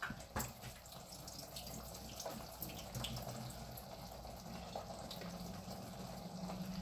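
Faint trickle of liquid draining into a sink, with a few light clicks: the liquid being poured off green beans so they go into the dish without it.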